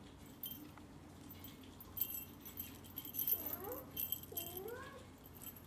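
A kitten batting at a wire-spring wand toy and a woven rattan ball, making light metallic jingling and rattling that gets busier about two seconds in. Near the end there are three short rising mews from a cat.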